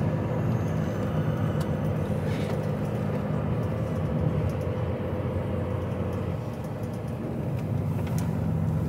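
HGV lorry's diesel engine running at low speed, heard from inside the cab: a steady low drone with a faint steady hum above it.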